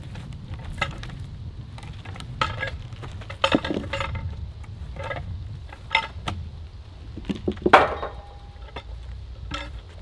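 Irregular metal clanks and knocks, some ringing briefly, as a log is levered and shifted into place under a portable sawmill's rails, the loudest clank a little before the end, over a steady low rumble.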